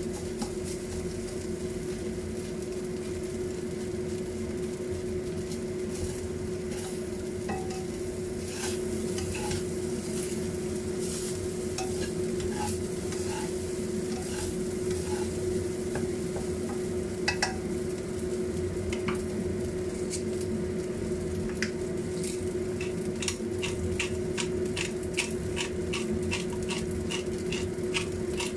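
Oil sizzling and bubbling around rolls deep-frying in a pan, while a spatula scrapes and clicks against a wok as rice is stirred. In the last third the spatula strikes come quickly and regularly. A steady hum runs underneath.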